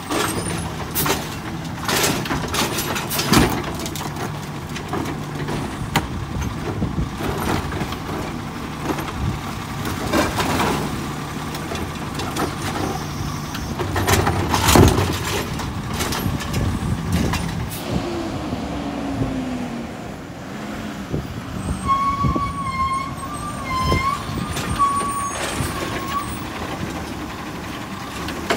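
Natural-gas side-loader garbage truck running while its Rapid Rail automated arm grabs a recycling cart, lifts and dumps it, then sets it back down. Repeated clanks and bangs from the cart and the arm sound over the engine.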